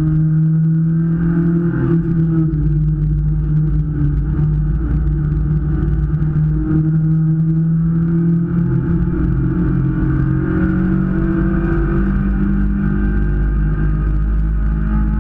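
Hyundai Veloster race car's engine heard from inside the cabin, running hard at high revs with small dips and rises in pitch, over a steady low rumble.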